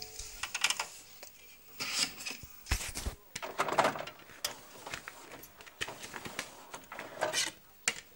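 Irregular clicks, knocks and rustles of hands working an old hi-fi stereo system to load a CD.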